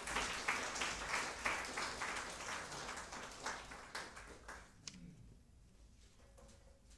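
Audience applauding with a dense patter of many hands clapping, which fades out about five seconds in.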